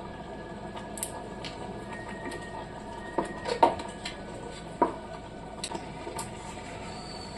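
Semolina (suji) halwa hissing and bubbling in a pan while it is stirred with a wooden spatula. A few sharp knocks and scrapes of the spatula against the pan stand out, the loudest about three and a half seconds in.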